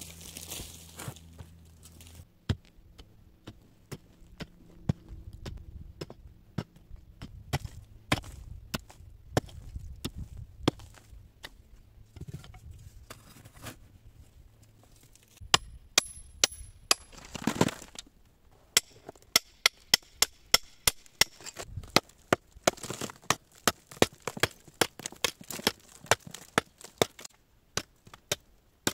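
Hand tools striking earth and soft rock while a cave is dug out: scattered lighter blows at first, then, about halfway through, sharper and louder hammer strikes at roughly two a second.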